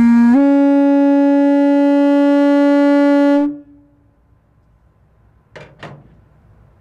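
A Nathan M-series locomotive air horn sounds a single bell on one steady note. The bell is blown gently on low air while it is being voiced. Just after the start its pitch jumps up a step, and the note cuts off after about three and a half seconds. Near the end there are two brief sharp clicks in quick succession.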